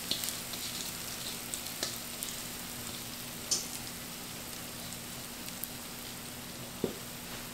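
Cornbread batter sizzling in a hot cast-iron skillet, a steady hiss: the sign of the crust starting to form on the hot pan. A few soft clicks come from a spatula scraping the mixing bowl.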